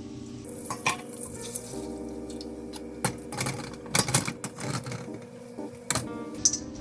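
Kitchen utensil knocking and clinking against a pot or pan in a scattered series of sharp hits, with a small cluster about four seconds in.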